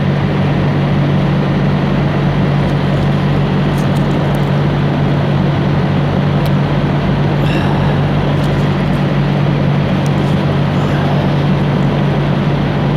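Diesel engine idling: a steady, loud drone with a low hum, close by, with a few faint clicks over it.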